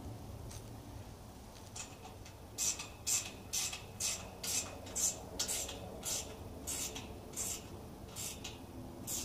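Ratchet wrench tightening the bolt that fastens a steel corner brace to a greenhouse ground post: about a dozen short metallic ratcheting strokes, roughly two a second, starting about two and a half seconds in.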